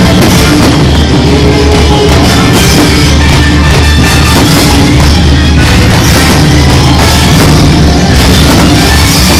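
Loud rock-style music with a drum kit, steady and dense.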